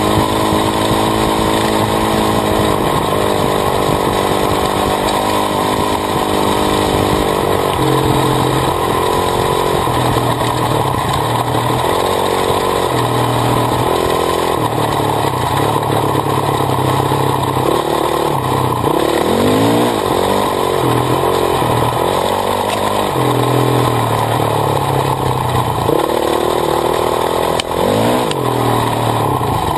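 Honda CRF450R's single-cylinder four-stroke engine under way on a dirt trail, its pitch stepping up and down as the rider works the throttle and gears, with quick rev sweeps about two-thirds of the way through and again near the end. Heard up close from the swingarm, beside the rear wheel and chain.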